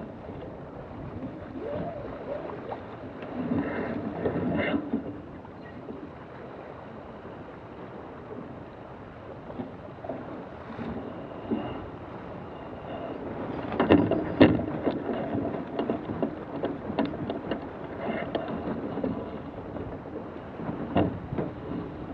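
Wind rushing over the microphone and water noise from a small sailboat under way, with scattered knocks and rattles of gear being handled; the loudest clatter comes about 14 seconds in.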